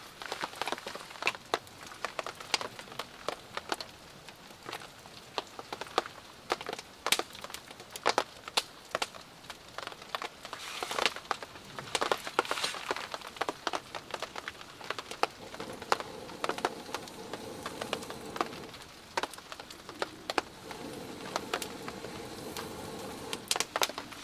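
Wood campfire crackling, with irregular sharp snaps and pops, over the steady hiss of light rain. A faint low hum comes in about two-thirds of the way through.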